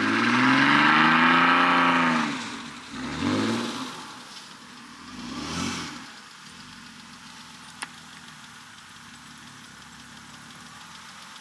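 Car engine revving hard, its pitch climbing and falling over about two seconds, then two shorter revs about three and five and a half seconds in, before it settles to a low, steady sound.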